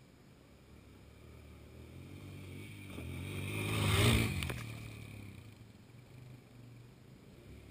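A four-wheeler's (ATV's) engine approaches and passes close by. It grows steadily louder to a peak about four seconds in, with a rush of noise as it goes past, then fades as it moves away.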